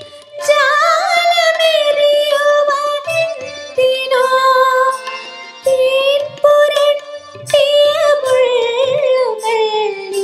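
A young woman singing a Malayalam film song over a backing track. Her melody is ornamented, with wavering turns and vibrato, and drifts lower near the end, over light percussion.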